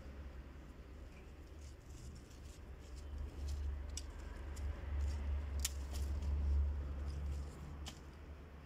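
Scissors snipping plant stems: a few sharp clicks about a second or two apart over a steady low rumble.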